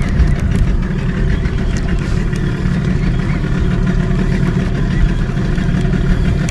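Small fishing boat's engine running steadily at idle.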